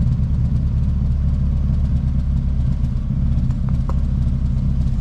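Nissan 350Z's swapped VQ35HR V6 idling steadily through an exhaust with the muffler cut off, just after debris from a blown, clogged catalytic converter was cleared out of it. The owner says it doesn't seem to be running very well.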